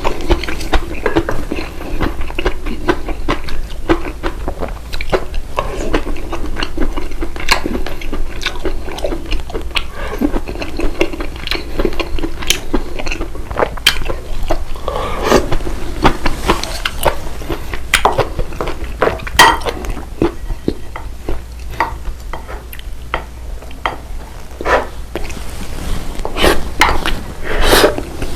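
A person eating at the table: chewing and biting close to the microphone, with frequent short clinks of cutlery against dishes.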